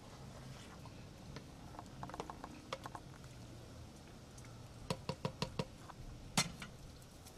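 Wooden spoon stirring soup in a metal pot, knocking faintly against the pot: a few light taps, a quick run of about six taps about five seconds in, and one sharper knock near the end.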